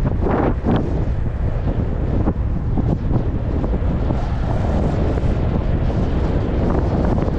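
Wind buffeting the microphone of a camera carried while riding, a steady low rumbling noise.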